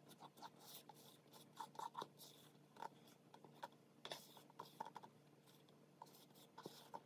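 Faint scraping and small ticks of a spatula working thick cake batter out of a plastic bowl into a metal cake pan.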